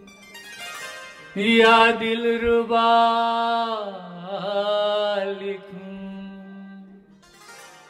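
A man singing slow, long-held notes into a microphone. A phrase starts about a second and a half in, bends down in pitch around four seconds, and trails off near the end.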